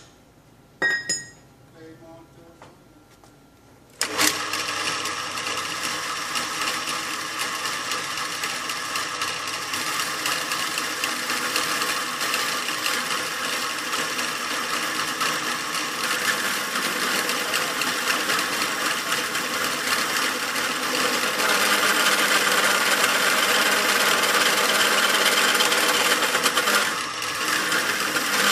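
A brief metallic clink about a second in. About four seconds in, a bench drill press starts up and runs steadily, its bit drilling into a clamped steel angle. The cutting noise grows louder for a few seconds near the end, then drops off.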